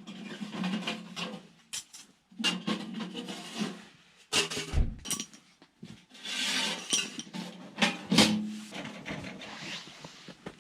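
Irregular clinks, knocks and rustling of things being handled, over a low steady hum.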